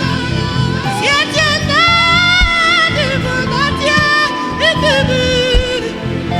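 Gospel worship music: a sung melody in long, wavering held notes over a sustained backing, with a few deep drum hits.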